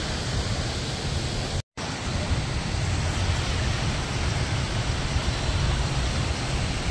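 Steady wind noise rumbling and hissing on a phone microphone outdoors, with a brief gap of silence a little under two seconds in.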